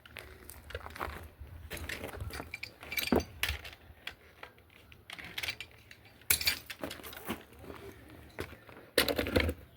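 Irregular clatter of knocks and metallic clinks from work by hand, with louder bursts about three seconds in, just after six seconds and near the end.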